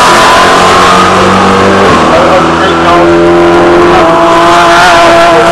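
Sports-prototype and GT race car engines at high revs as cars pass. Their notes drop and break about two seconds in as the cars come off the throttle for the corner, then climb again as they accelerate away.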